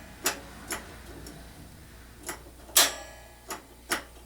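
Piezo igniter on a Mr. Heater Big Buddy propane heater clicking about six times at an uneven pace, each click a sharp snap, as it sparks to light the pilot.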